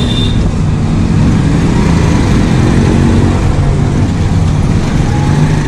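Yamaha RX 135's two-stroke single-cylinder engine running at fairly steady low revs while the motorcycle is ridden, with road and wind noise.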